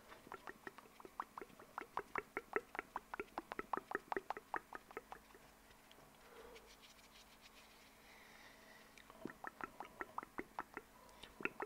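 Mouth sounds close to a microphone: rapid mouth clicks, about seven a second, for about five seconds. A softer pause follows, and the clicking starts again about nine seconds in.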